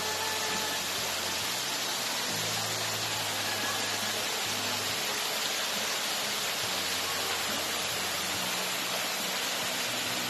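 Steady rushing of flowing spring water, an even hiss that does not change.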